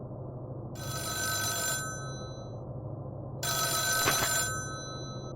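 A telephone ringing twice, each ring about a second long with a short fading tail, over a steady low hum.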